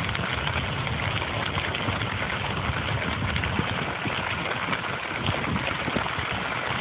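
Fire burning through dry grass: a steady rushing noise with dense, fast crackling.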